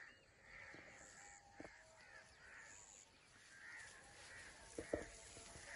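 Faint crows cawing again and again, with a few soft thumps about one and a half seconds in and again near the end.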